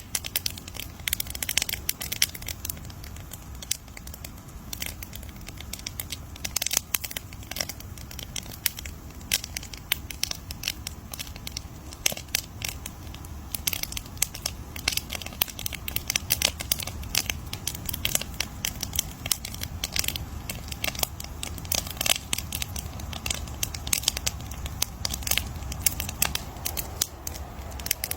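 Campfire crackling: a dense, irregular run of sharp pops and snaps over a low, steady rumble of burning wood.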